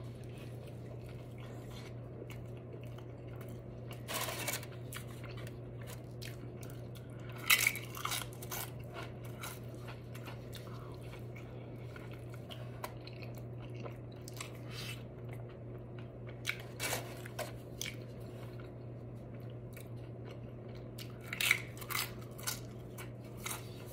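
Close-miked chewing and biting of a large burrito, with short wet mouth sounds every few seconds over a steady low hum.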